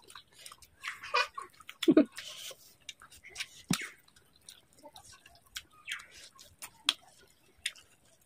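Close-up eating sounds: fingers squishing and mixing rice on banana leaves, with wet mouth smacks and chewing as scattered short clicks. There is a brief low sound about two seconds in.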